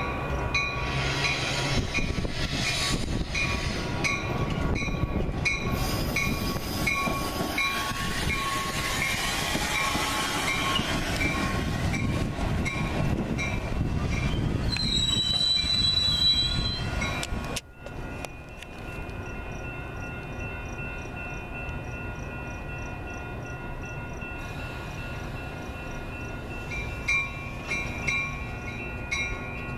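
Metra commuter train of bilevel gallery cars running past on the rails, loud and close, with a regular clicking and a high wheel squeal near the middle. It cuts off abruptly and then carries on more quietly.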